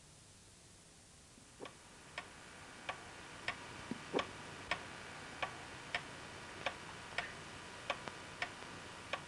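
Grandfather clock ticking, about one and a half ticks a second, starting about a second and a half in after near silence.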